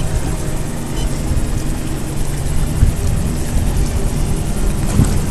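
Steady low rumble of a fishing boat's motor running, mixed with uneven low buffeting on the microphone.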